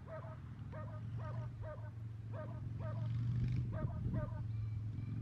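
An animal calling over and over in short, quick calls, often in pairs, two or three a second, over a low steady hum.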